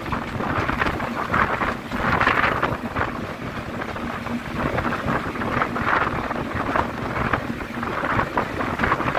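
Class 33 diesel locomotive running along the line, heard from a window just behind it, with wind buffeting the microphone in loud gusts about every second.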